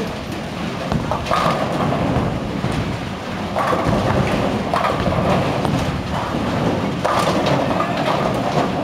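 Bowling hall noise: bowling balls rumbling down the lanes and pins crashing on them, with several sharp crashes over the steady rumble.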